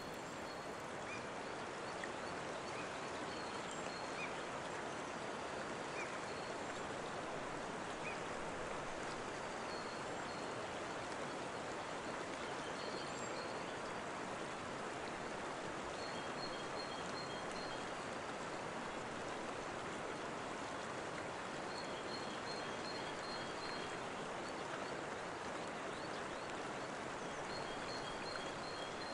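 Steady rushing of running water, as from a small waterfall or stream, with faint high bird chirps coming in short groups every few seconds.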